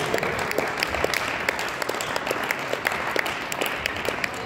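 A small crowd applauding: many separate hand claps over a steady patter.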